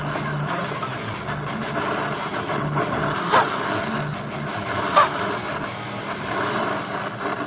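Brazing torch flame burning with a steady rushing noise while a Schrader valve is soldered onto a broken refrigerator refrigerant line. Two sharp metallic clicks come about three and five seconds in.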